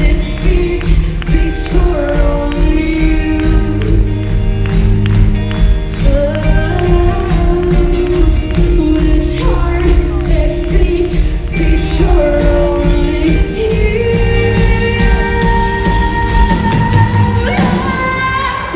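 A rock band playing live, with drums, bass and guitars under a female lead vocal that sings sustained, bending lines.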